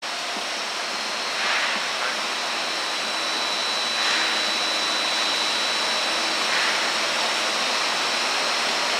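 Steady machinery noise of a brewery floor: an even rushing hiss with a constant high-pitched whine, and soft hissy swells about every two and a half seconds.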